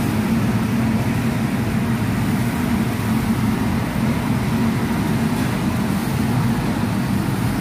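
Steady low rumble with a light hiss over it: the running noise of commercial kitchen equipment.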